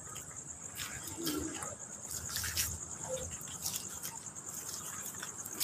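Insects trilling steadily at a high pitch, with a few faint scattered clicks and knocks.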